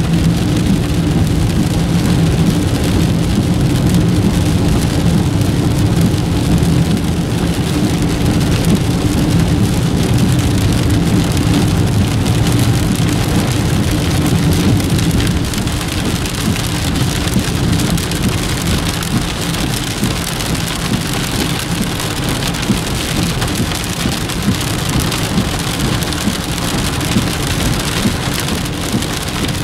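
Rain on a moving car's windshield and body, heard from inside the car, mixed with the steady low hum of the engine and tyres on the wet road.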